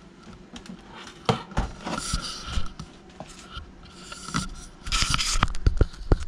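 Hands handling a toy RC lowrider's chassis: rubbing and scraping over the plated underside, with a few sharp clicks. A louder spell of scraping comes about five seconds in.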